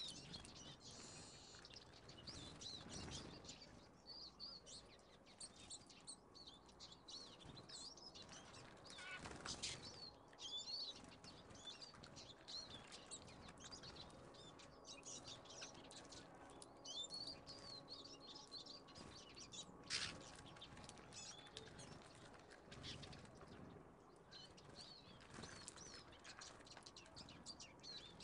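Faint, continuous chirping and twittering of small songbirds, tits and finches, with a few brief wing flutters as birds come and go.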